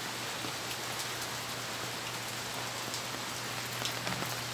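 Steady rain falling on a wet concrete yard and garden plants, with scattered individual drops ticking close by.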